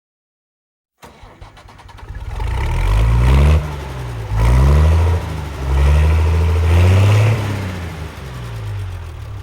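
An engine starting up abruptly about a second in and revving up and down several times in rising and falling swells.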